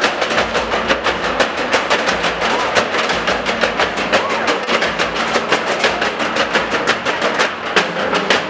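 A group of drummers beating red steel oil barrels with sticks in a fast, steady, driving rhythm of many strikes a second.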